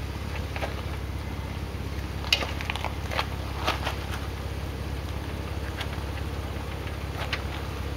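Jeep Wrangler's engine idling low and steady as it crawls down a steep rock slab, with a few sharp crackles and crunches of tyres on rock and grit, the loudest about two seconds in and another near the end.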